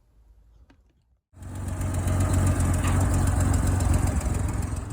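An engine running steadily, starting abruptly at full level about a second in.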